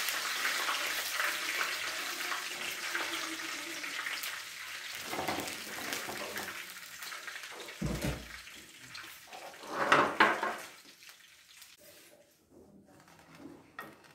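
Hot frying oil in a pan sizzling and slowly dying away, with a dull thump about eight seconds in and a louder clatter about two seconds later.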